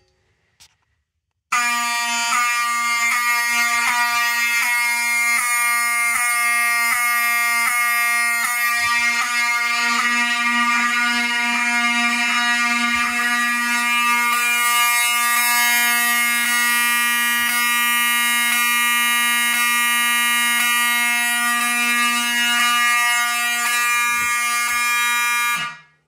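Wheelock 7002 mechanical fire alarm horn sounding, a loud buzzy horn tone that starts about a second and a half in. For roughly the first half it wavers about twice a second, then it holds steady and cuts off abruptly just before the end.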